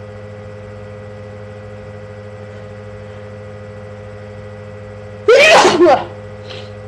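A single loud, voiced sneeze about five seconds in, an allergy sneeze, over a steady background hum.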